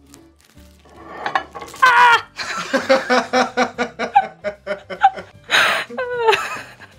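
A woman laughing hard: a run of quick, pulsing laughs from about two seconds in, ending in a high, falling squeal near the end.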